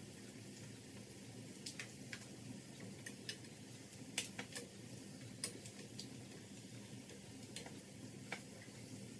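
Scattered light clicks and taps at irregular intervals, over a low steady hum.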